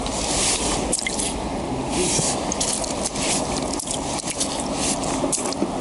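Wet perch being pushed and slid by hand across slushy ice, with irregular scraping, squelching swishes and small slaps, over a steady low rush of noise.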